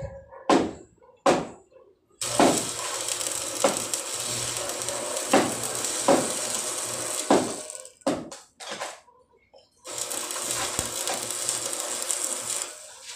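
Stick (arc) welding on a metal pipe frame. After two brief bursts, the arc runs steadily with occasional pops for about five seconds, stops briefly, then runs again for about three seconds.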